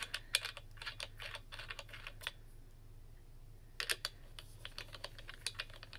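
Light clicks and rattles of a mini stepper's metal tension-adjustment bracket and threaded bolt being handled and tried for fit. The clicks come in two runs, with a pause of about a second and a half between them.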